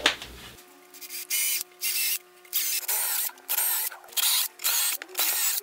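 Cordless drill boring holes in wood, run in a series of short bursts, roughly two a second.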